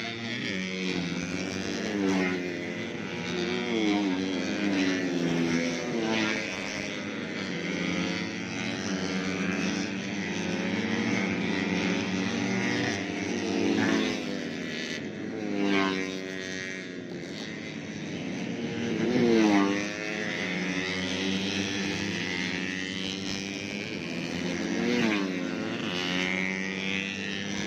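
Tuned 130cc four-stroke underbone racing motorcycles screaming past at high revs in a pack, engine pitch rising and falling over and over as bikes come by and change gear. The loudest passes come about 16 and 19 seconds in.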